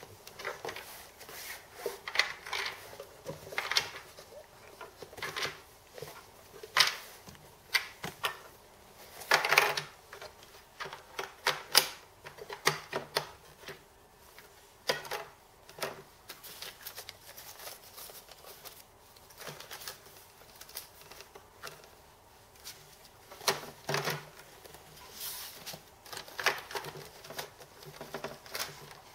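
Small plastic toy stamps being set into the slots of a plastic stamp-set case: irregular clicks and light knocks of plastic on plastic, with no steady rhythm.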